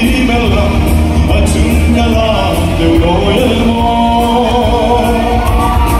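Live gospel song: a male singer singing into a microphone over loud, amplified backing music with a heavy bass, in a large hall.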